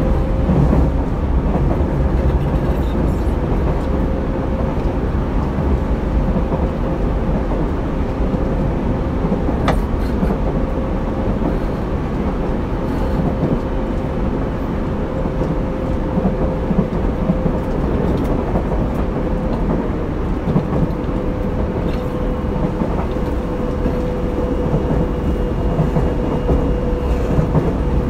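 Tobu 30000 series electric train heard from inside motor car MoHa 33609, running at speed with a steady low rumble and a constant whine. A single sharp click about ten seconds in.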